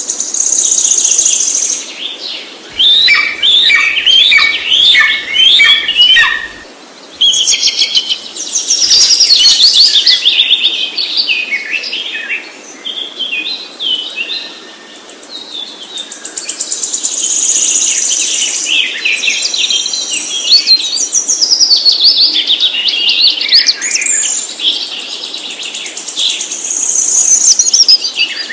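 Songbirds singing and chirping, with rapid runs of high notes and trills, several phrases following one another and overlapping.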